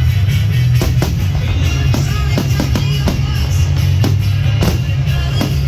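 Loud music with a heavy, steady bass, and aerial firework shells bursting with many sharp bangs and crackles.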